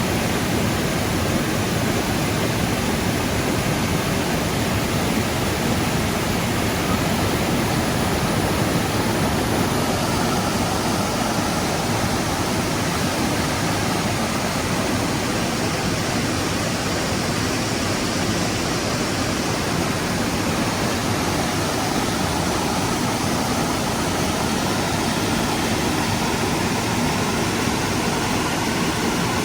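Creek water rushing, a steady unbroken rush.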